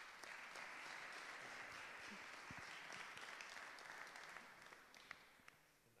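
Audience applauding, faint, dying away over the last couple of seconds.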